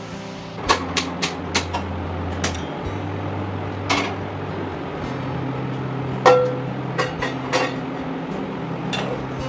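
Steel kitchenware clinking and knocking on a gas stove as a small saucepan is handled and set on a burner. There are quick clicks in the first couple of seconds and a few spaced knocks after, the loudest a metal clank with a short ring a little past the middle, over soft background guitar music.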